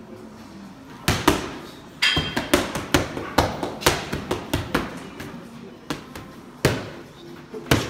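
Boxing gloves striking focus mitts in combinations: a quick double hit, then a rapid run of about a dozen punches, then a few single hits near the end.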